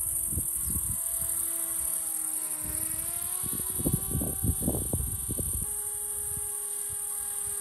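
Electric motor and propeller of a small 3D-printed RC flying wing droning in flight, a steady tone that sags slightly in pitch and then rises about three seconds in. Gusts of wind rumble on the microphone in the middle.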